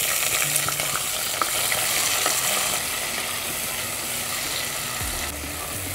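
Chopped onion and freshly added tomato sizzling in hot oil in a pressure cooker, stirred with a wooden spatula. The sizzle is steady, with a few faint clicks of the spatula against the pan.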